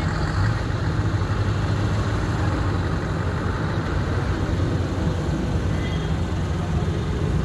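Heavy-haul Scania truck's diesel engine running steadily as it pulls a massive oversize load at walking pace, a constant low hum.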